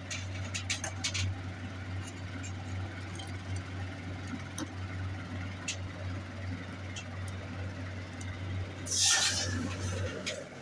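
Sterling silver piece dropped into the acid pickle bath, giving a brief hiss about nine seconds in. Under it runs a steady low hum that stops just after, with a few light clicks near the start.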